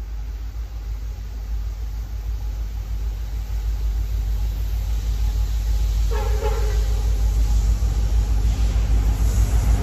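Low rumble of an approaching Norfolk Southern freight train's diesel locomotives, growing steadily louder as it nears. A short higher tone sounds about six seconds in.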